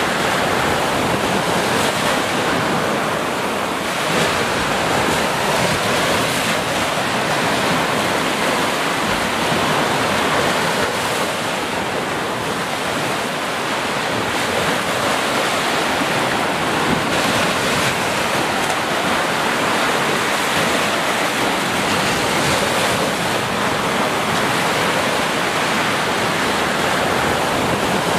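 Low ocean surf breaking and washing up a sandy beach: a continuous rushing hiss that swells and eases slightly as the waves come in.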